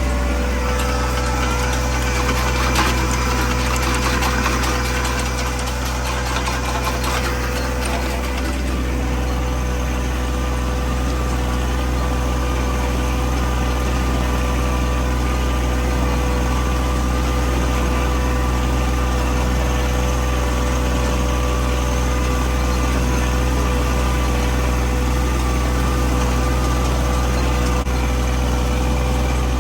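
Four-wheel-drive vehicle's engine running steadily as it drives through a field: a constant low drone with a steady hum above it.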